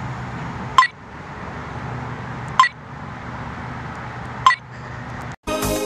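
Three short, sharp beeps about two seconds apart over a steady low hum. Music cuts in abruptly near the end.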